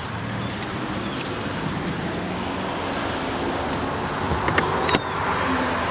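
Steady background noise, with a few sharp knocks about four and a half to five seconds in.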